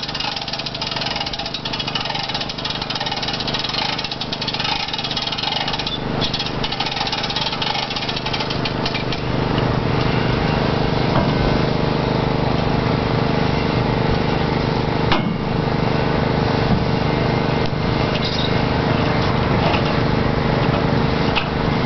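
A motor running steadily, getting louder and fuller from about ten seconds in, with a single sharp knock a few seconds after that.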